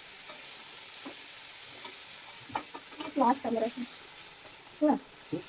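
Curry frying in an iron kadai, a steady sizzle as liquid is poured over the potatoes and greens. A metal spatula stirs and scrapes the pan, with a few light knocks. Brief pitched sounds come about halfway through and again near the end.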